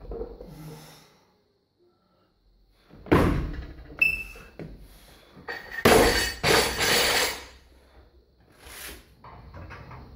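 Loaded barbell with rubber bumper plates dropped onto the gym floor: a heavy thud about three seconds in, then louder crashing and clatter of bar and plates around six seconds.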